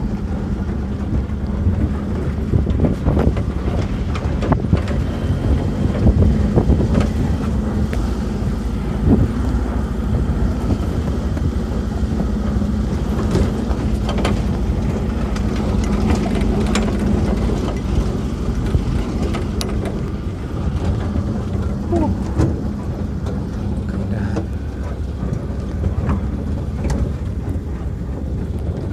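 Off-road tour jeep's engine running steadily as it drives over a rough, muddy dirt track, with knocks and rattles from the body jolting over ruts, heard from on board the open jeep.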